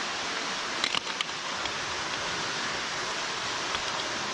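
Steady rush of a large underground waterfall falling down a deep cave pit, with a few sharp clicks about a second in.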